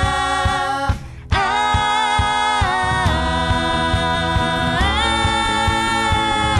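Background music: held, choir-like chords that shift pitch every second or two over a steady beat, dropping out briefly about a second in.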